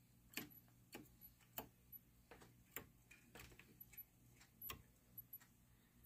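Stop tabs on a Wurlitzer electronic organ console being flipped by a fingertip, one after another: a dozen or so faint, sharp clicks at an uneven pace over a low steady hum. No notes are played.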